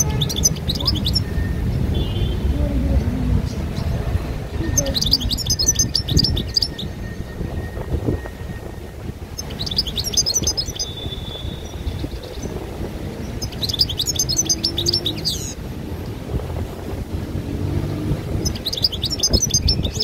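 A small caged songbird gives five short bursts of rapid, high twittering, one about every four to five seconds, over steady low background noise.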